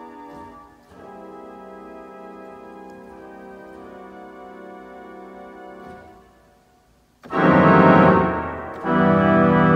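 1929 Midmer-Losh pipe organ playing soft sustained chords that fade away about six seconds in. After a short gap it breaks into a loud full chord, which cuts off briefly before another loud chord sounds near the end.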